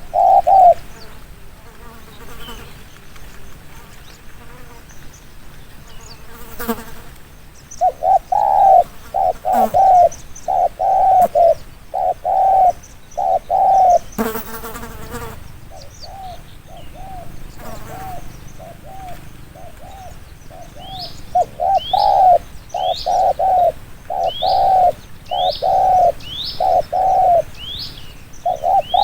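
Spotted dove cooing in quick repeated phrases of low coo notes, with pauses between phrases. A brief noisy rustle comes about 14 seconds in, and in the last third another bird gives a series of thin, high chirps.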